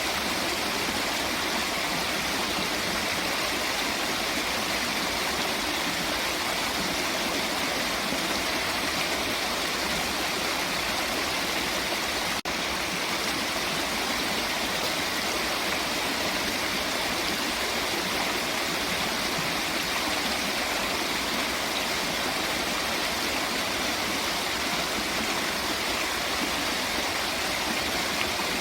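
Steady rush of flowing water, a continuous even hiss, with one very brief break about twelve seconds in.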